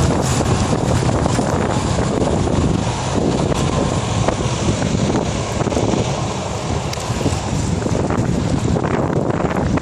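Wind buffeting the camera's microphone while riding a bicycle, a steady loud rush with scattered small clicks and rattles.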